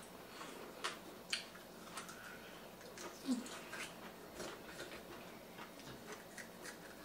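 Close-up eating sounds: irregular wet lip smacks and chewing clicks as meat is gnawed off a barbecued rib bone, with a brief low vocal 'mm' about three seconds in.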